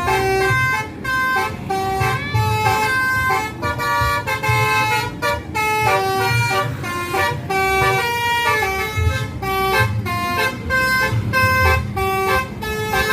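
Bus basuri ('telolet') musical air horn playing a fast, repeating tune of short notes that step up and down in pitch. The bus engine runs underneath as a low rumble.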